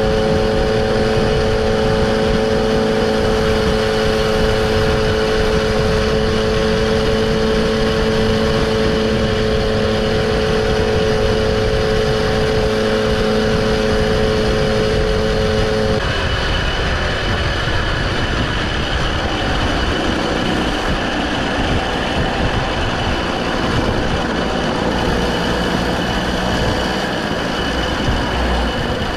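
Moped engines running at a steady speed with heavy wind and road noise, as heard while riding. About halfway through the sound changes abruptly: the steady engine tones drop out, leaving rough wind and road noise.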